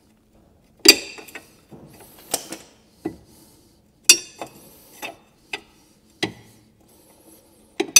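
Spanner working the 22 mm nut off a car's lower ball joint: sharp metallic clicks and clinks, about one a second, several with a bright ringing tail.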